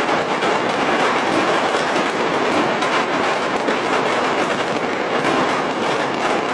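Countless firecrackers and fireworks going off all across a city at once, heard from high above as a dense, unbroken crackle with no single loud bang standing out.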